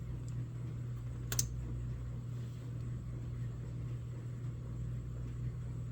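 A single sharp click from small ratchet parts being handled during disassembly, about a second and a half in, over a steady low hum.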